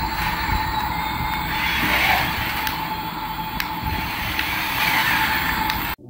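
Battery-powered toy Airbus A380 airliner running across a tiled floor: a steady whine over a loud rushing noise, with a couple of sharp clicks about halfway through.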